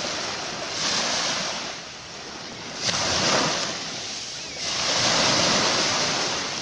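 Ocean waves breaking and washing up a beach, the surf swelling and ebbing in surges: one about a second in, a sharper break about three seconds in, and a longer wash from about five seconds.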